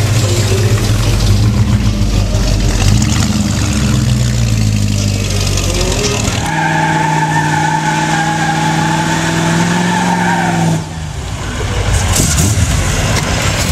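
Classic American cars pulling away, engines rumbling low. About six seconds in, a steady high tone is held for about four seconds and cuts off abruptly. Rougher engine and tyre noise follows.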